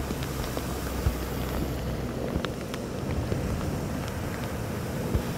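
Cars driving one after another through flash-flood water over a road, their tyres throwing up a steady splashing spray over a low engine rumble.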